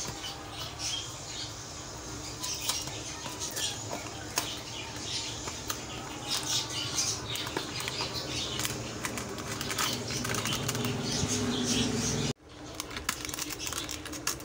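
Cardboard custard-powder box and its paper inner packet being opened and torn by hand: crinkling, rustling and small crackles, with a low steady hum underneath. The sound cuts out abruptly about twelve seconds in, then the handling noise resumes.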